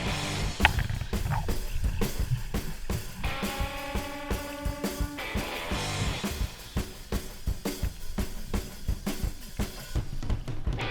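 Background music with a steady drum-kit beat, and held notes over it for a couple of seconds near the middle.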